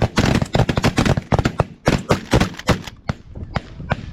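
Several shotguns firing in a rapid, overlapping volley at snow geese, the shots packed close together and thinning to a few separate shots in the last second.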